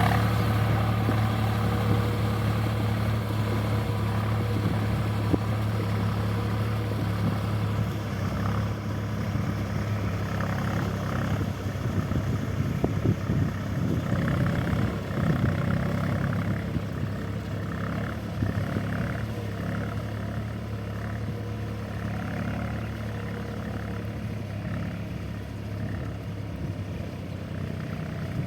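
Tractor engine running steadily under load, a continuous low drone, with a repeating pulsing rattle joining from about eight seconds in.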